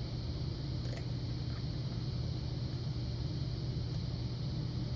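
Steady low background hum, with a couple of faint clicks as a lock pick works the pins of a Yale Punisher pin-tumbler lock under tension.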